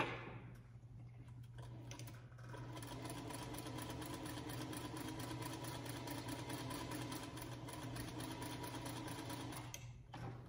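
Singer Featherweight sewing machine stitching a quarter-inch seam to join two fabric squares: it starts about two seconds in, runs at a steady fast stitch, and stops shortly before the end. A sharp knock comes right at the start.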